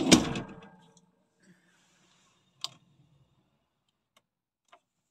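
A loud knock with a rattling slide as the truck cab's pull-out fridge drawer is handled, fading within about a second. Then a few sparse, sharp clicks as buttons on the fridge's small control panel are pressed.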